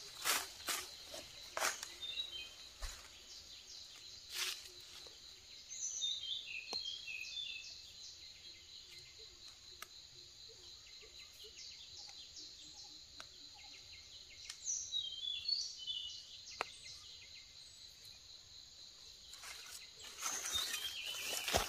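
Forest ambience: a steady high insect drone, with clusters of short falling bird chirps about six and fifteen seconds in. Scattered soft clicks and dry-leaf rustles come from hands picking mushrooms out of the leaf litter, and the rustling grows louder near the end.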